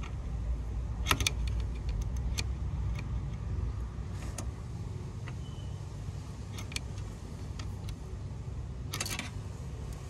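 A steady low machine hum, with several short sharp clicks and taps of multimeter probe tips against the outdoor unit's circuit board, a cluster of them near the end.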